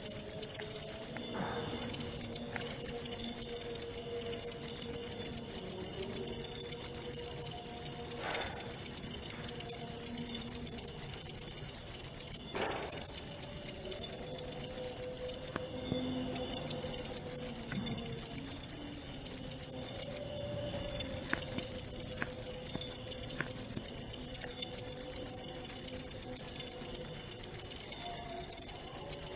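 Cricket chirping: a fast, even, high-pitched trill that breaks off briefly a few times.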